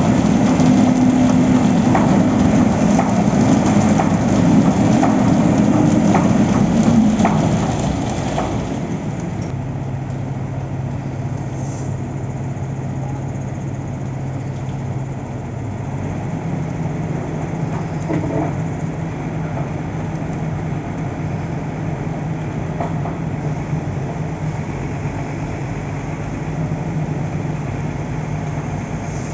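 Heavy construction machinery engine running, with knocks and rattles while it runs higher for the first seven seconds or so. It then drops to a lower, steady speed and rises slightly about halfway through.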